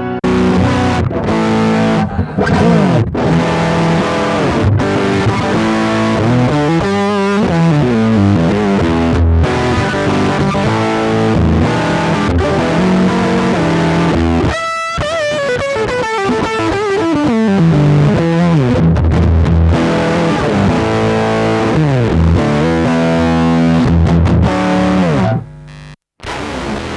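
Strandberg electric guitar played through a Line 6 HX Stomp multi-effects unit on a distorted, effects-heavy preset, many notes sliding up and down in pitch. The sound changes abruptly about halfway through and cuts out briefly near the end.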